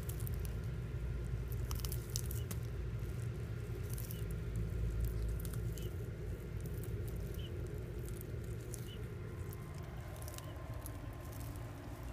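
Red-footed tortoises biting and tearing leafy greens: scattered short crunches and clicks, over a steady low rumble.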